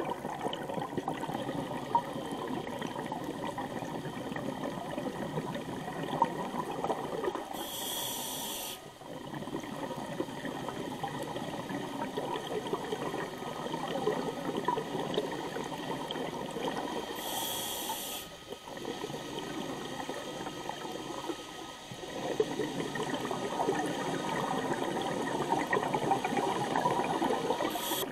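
Scuba diver breathing through a regulator underwater: a high hiss of inhalation three times, about every ten seconds, with the bubbling of exhaled air in between.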